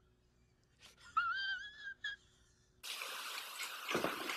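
A high, wavering whimpering voice, once about a second in, lasting about a second. From about three seconds there is a steady hiss with a few wet chewing clicks near the end.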